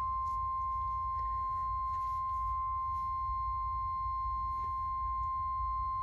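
NOAA Weather Radio 1050 Hz warning alarm tone sent in a Required Weekly Test: one steady tone held without a break, played through a Motorola weather radio's speaker.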